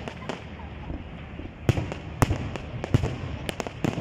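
Fireworks going off: irregular sharp bangs of bursting shells, a handful of loud ones in the second half, over a continuous background din.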